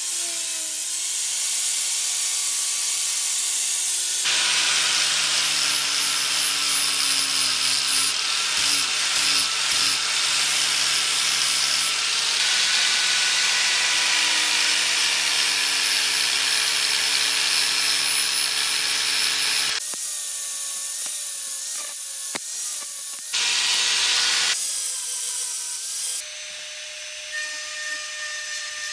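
Angle grinder with a sanding disc spinning and grinding rust off steel, in several edited stretches, loud and dense with a steady motor hum underneath. Near the end it gives way to a small handheld rotary tool whining at a steady high pitch against the blade.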